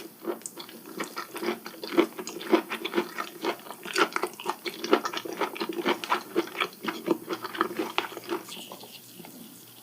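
Close-miked wet chewing of raw scallop sashimi: a quick, irregular run of soft mouth smacks and clicks that dies away about eight and a half seconds in.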